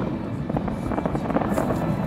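Fireworks display going off: a quick run of small crackles and pops over a steady low rumble.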